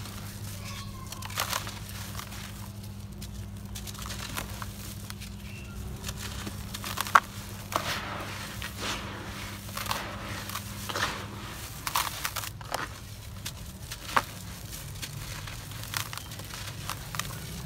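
Dry, gritty cement chunks crushed and crumbled by hand: irregular sharp crunches and crackles with grit pouring back onto a pile of powder. The loudest crunch comes about seven seconds in.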